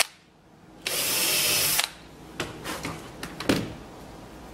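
Hand-held power drill with a twist bit boring a 5 mm hole into a wooden board for about a second, then stopping, for a hinge mounting plate's plastic grommets. A few light clicks and one sharp knock follow.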